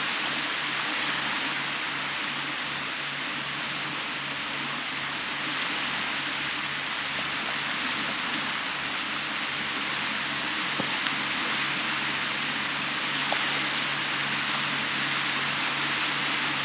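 Steady hiss of small waves breaking and washing up a sandy beach.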